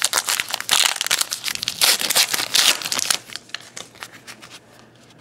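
A 2012 Topps Gypsy Queen card pack wrapper crinkling loudly for about three seconds as it is handled open. Quieter rustling follows as the stack of cards is slid out of the wrapper.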